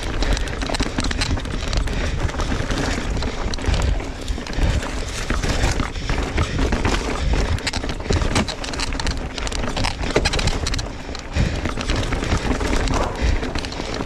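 Mountain bike ridden fast down a rough dirt trail: tyres rolling and skittering over dirt and rocks, with dense clattering from the bike and wind buffeting the helmet camera.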